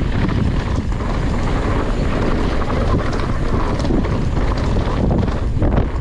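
Downhill mountain bike riding fast over rough ground: wind rushing over the microphone with the bike rattling and clattering throughout.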